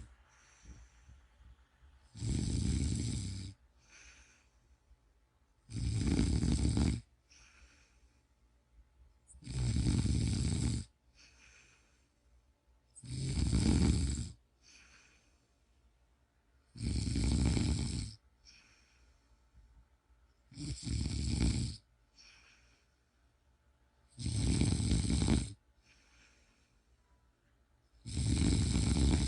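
Snoring, one slow, regular snore after another: eight loud snores, one about every three and a half to four seconds, each lasting just over a second, with much quieter sounds in the gaps between them.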